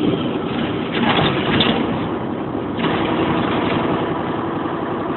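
Cabin noise inside a Bova Futura coach at highway speed: a steady diesel engine hum under tyre and road noise, with a brief louder rush about a second in.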